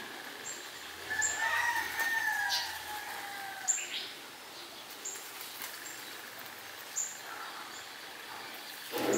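A rooster crows once in the background about a second in, a call of nearly two seconds that sags in pitch at its end. Through it come scattered short crisp clicks of a rabbit chewing the leaves and stems of a cannabis plant.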